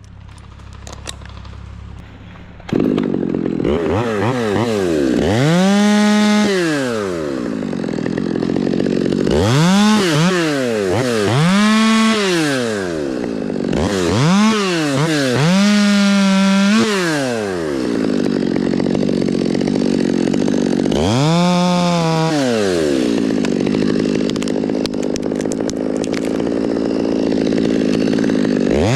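Chainsaw engine revving up and dropping back about six times, running at a lower steady speed in between; the first couple of seconds are quieter before the saw comes in loud.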